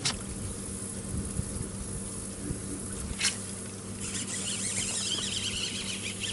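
A steady low motor hum, with a single sharp click about three seconds in and high chirping starting about four seconds in.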